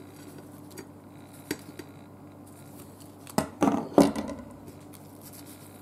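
A knife knocking and clinking against a plate while a flaky pastry patty is handled on it: a few faint clicks, then a short cluster of louder clatters about three and a half to four seconds in.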